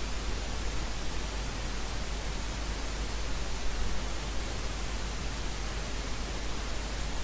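Steady hiss with a low hum underneath: the background noise of the recording, with no other sound.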